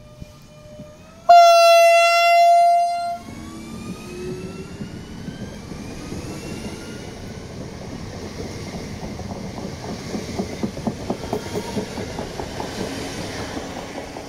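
Hessische Landesbahn electric multiple unit sounding one two-second blast on its horn about a second in as it departs. Its traction motors then whine, rising in pitch as it accelerates, and its wheels clatter rhythmically over the rail joints as it runs past.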